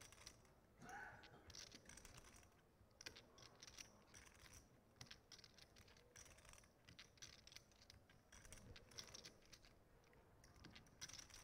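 Faint, irregular clicking and clacking of clay poker chips being riffled and handled at the table, under a near-silent room.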